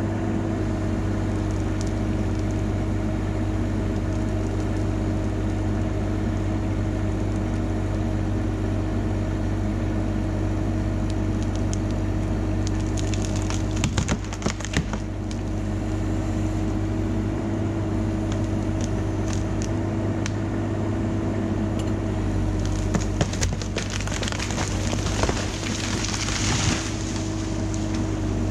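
An engine running steadily at an even speed, with spells of cracking and crunching as dead pine wood breaks, about halfway through and again near the end.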